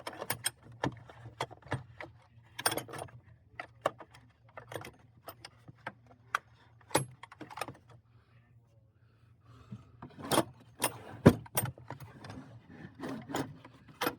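Metal hand wrenches clinking and clattering against each other and the metal tool box drawer as they are handled and rearranged, in sharp irregular clinks that are thickest near the end.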